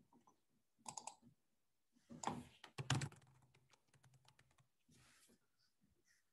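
Faint typing on a computer keyboard: short runs of keystrokes, the loudest about a second in and again from two to three seconds in, then lighter scattered taps.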